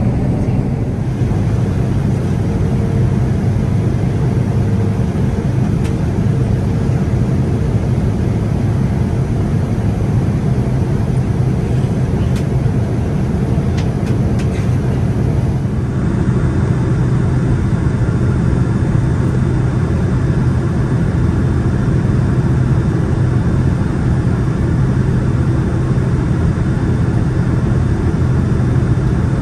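Steady cabin noise inside a Boeing 787-9 airliner, a constant rumble of engines and rushing air. About halfway through, the sound shifts and the low rumble grows stronger.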